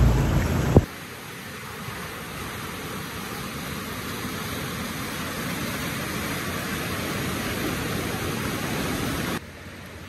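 Floodwater rushing down a swollen mountain creek: a steady roar of churning brown water. A deep rumble at first, then about a second in it cuts abruptly to the creek's full rush, and near the end it drops suddenly to a quieter wash.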